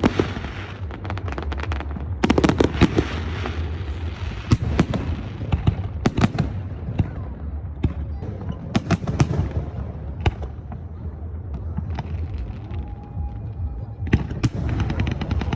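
Fireworks display: a run of sharp bangs and crackling bursts in clusters, over a low rumble of echoing booms.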